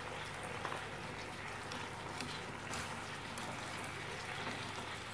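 Chicken fillets and zucchini sizzling and simmering in a frying pan with freshly poured sauce: a steady sizzle with scattered small pops.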